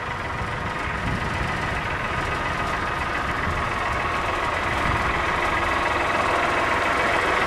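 Engine and road noise of a moving vehicle heard from inside it, steady and growing gradually louder.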